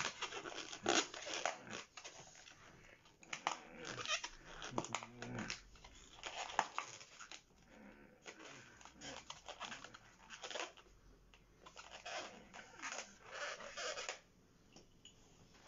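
Long latex modelling balloon squeaking and hissing on and off as its air is let out at the mouth, shrinking it for a fake balloon-swallowing trick.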